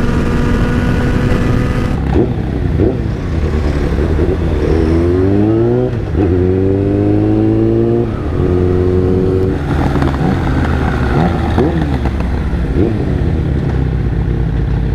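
Motorcycle engine heard from the rider's seat under way. The engine pitch climbs twice and drops sharply each time, as the bike accelerates and shifts up through the gears. Later there are short falling sweeps as it slows down.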